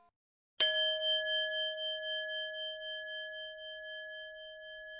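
A single bell-like chime, struck once about half a second in, rings on and fades slowly with a slight wavering.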